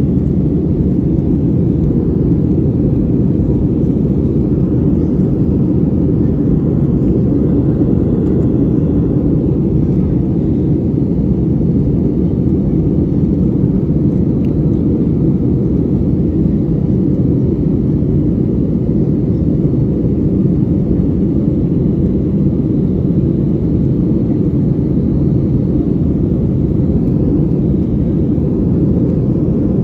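Cabin noise of a Boeing 737-700 in its climb after takeoff, heard from a window seat: the CFM56-7B engines and the airflow make a steady, low drone that does not change.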